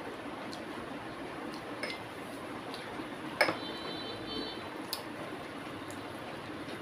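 Eating by hand from a plate of rice: fingers mixing and gathering food, with a few light clinks against the plate. The sharpest clink comes about halfway through and leaves a brief high ringing.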